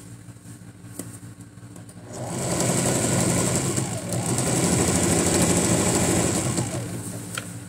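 Electric domestic sewing machine stitching through cotton fabric: the motor starts about two seconds in, runs steadily for about five seconds and winds down near the end.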